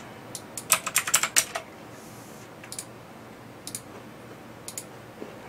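Computer keyboard and mouse clicking as values are typed in: a quick run of keystrokes in the first second and a half, then a few single clicks about a second apart.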